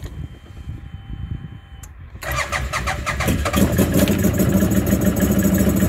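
CFMoto ZForce 800's V-twin engine started after a faint whine at key-on: the starter cranks about two seconds in, the engine catches about a second later and settles into a steady idle. This is the first run on fresh oil after an oil change, to circulate it before checking the level.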